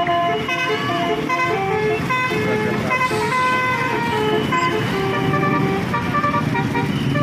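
Roof-mounted telolet horn of a tour bus: a set of air-horn trumpets playing a melody of short, steady notes that step up and down in pitch.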